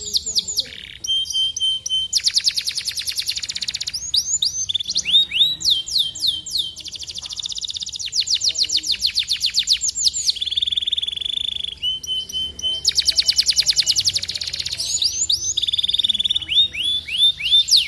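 Domestic canary singing a long, continuous song of repeated phrases: runs of falling whistled notes, fast rolling trills, and a buzzy held note about ten seconds in.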